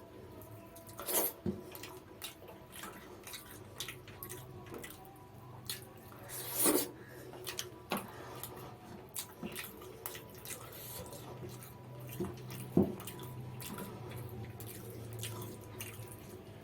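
Close-up eating sounds: chewing with irregular wet mouth clicks and smacks, several louder smacks about a second in, midway and near the three-quarter mark, over a faint steady hum.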